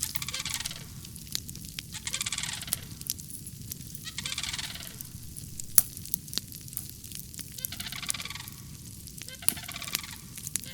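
A large bird calling over and over, one harsh call about every two seconds, with scattered crackling clicks from a wood fire burning in a brazier.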